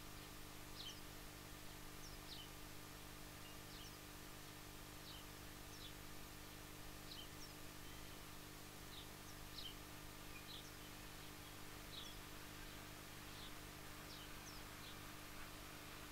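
A small bird chirping over and over, short high falling chirps about once a second, over the faint steady drone of a diesel shunter's engine running without change.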